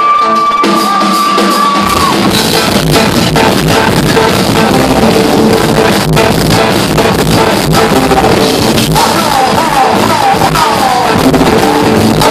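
Live country band playing: electric guitar, bass and drum kit, with a man singing. A single held high note gives way to the full band, with bass and drums coming in about two seconds in.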